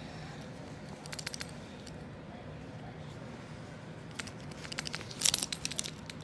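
Plastic pet cage rattling and clicking as a small dog tugs a rope toy carrot through its bars: three short bursts of quick clicks, the loudest a little after five seconds in.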